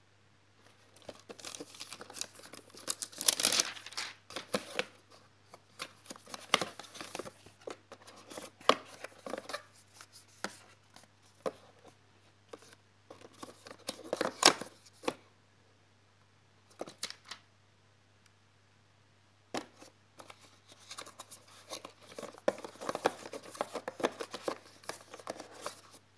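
Cardboard and paper packaging handled by hand: rustling, sliding and tapping of the box, its inner cardboard compartments and paper leaflets, in irregular bursts. A lull of a few seconds past the middle ends with a sharp tap.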